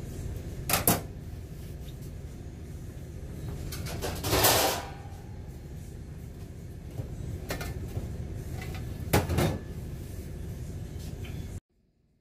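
Several sharp knocks and one brief scraping clatter over a steady low hum of room noise; the sound cuts off abruptly near the end.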